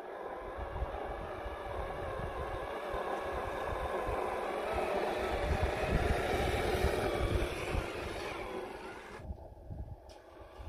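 Electric motor and gearbox of an RC crawler running as it climbs over gravelly dirt, growing louder as it nears, then fading. An abrupt cut about nine seconds in drops it to a quieter, more distant sound.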